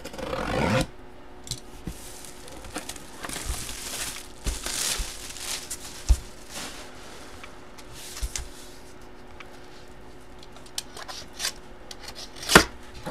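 Cardboard jersey box being opened and handled: scraping, rubbing and tearing of cardboard and its wrapping in irregular swishes, with a click about six seconds in and a sharper knock near the end.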